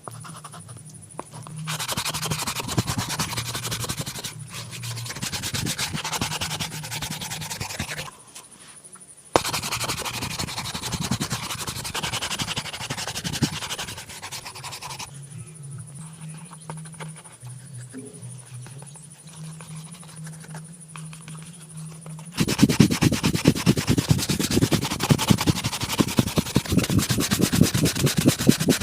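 A leather shoe being brushed during polishing: quick back-and-forth strokes in spells with short pauses between them, and a louder, faster run of brushing for the last few seconds.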